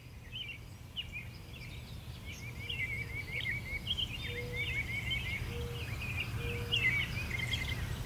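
Several small songbirds chirping and twittering in quick short trills, over a steady low background rumble.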